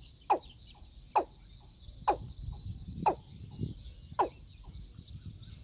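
A watercock calling: five short notes, each falling sharply in pitch, about a second apart. A steady chirring of insects runs underneath.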